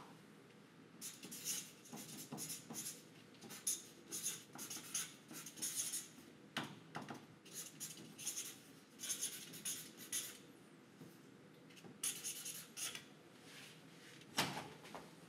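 Marker pen writing on paper taped to a wall: short scratching, squeaking strokes in bursts as the letters are drawn. A single thump about a second before the end.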